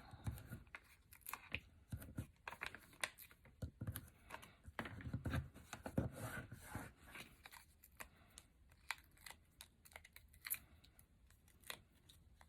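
Stampin' Dimensionals foam adhesive squares being peeled from their backing sheet, with cardstock pieces being handled and pressed down: scattered short rustles, peels and light clicks.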